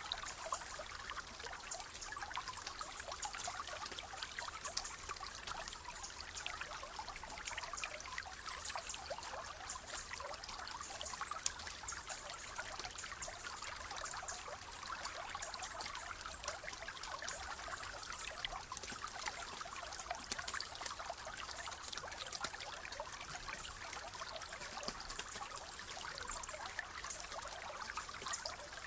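Shallow stream running steadily over stones, a constant trickling and splashing of many small droplets.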